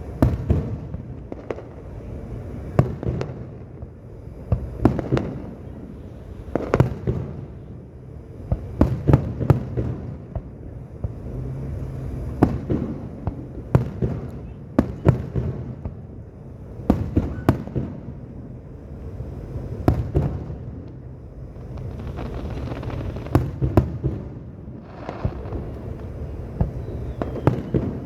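Aerial fireworks display: a steady string of shell bursts going off one after another, often in quick pairs or clusters, each sharp bang followed by a rolling rumble.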